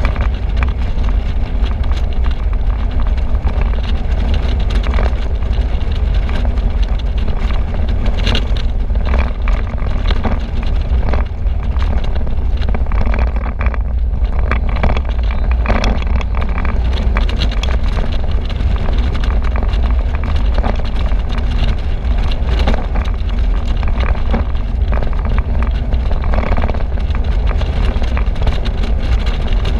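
Wind rushing over an action camera's microphone in an open-top convertible at road speed: a loud, steady low rumble with frequent gusts of buffeting, car and road noise mixed in beneath.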